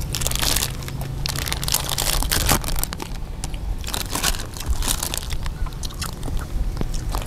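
Close-up crunching and chewing of a rice-paper roll filled with chewy-crunchy pork skin and shrimp, mixed with the crinkle of a plastic rice-paper packet being handled.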